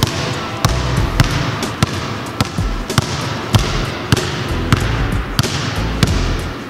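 A basketball dribbled steadily on a hardwood gym floor, with about ten bounces at a regular pace of a little under two a second, each echoing in the gym.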